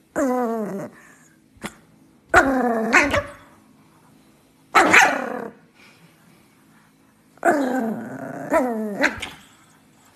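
Small black-and-tan dog growling and barking around a chew bone held in its mouth, in four drawn-out bouts, each sliding down in pitch, the last the longest.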